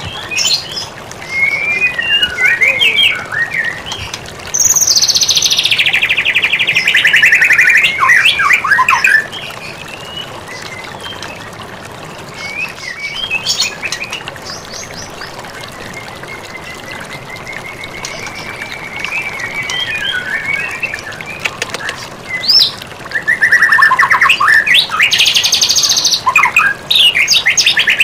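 White-rumped shama (murai batu) singing: clear whistled phrases that glide up and down, broken by two long stretches of fast, harsh rattling notes, one about five seconds in and another near the end.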